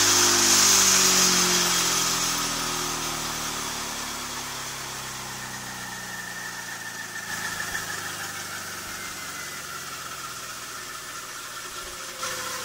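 Straddle 2 combat robot's spinning weapon winding down after its first spin-up: a falling whine that fades over the first few seconds, leaving a quieter steady mechanical running sound. Near the end there is a brief rise in level.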